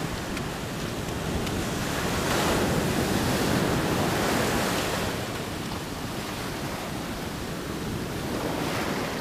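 Surf washing up over the sand at the water's edge: an even rush of breaking waves that swells louder a couple of seconds in, eases off, and surges again near the end.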